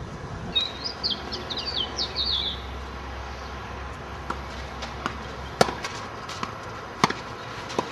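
A songbird sings a quick run of high chirping notes for about two seconds. Then a tennis rally on a clay court is heard as a series of sharp pops from racket strikes and ball bounces, two of them loudest, about a second and a half apart.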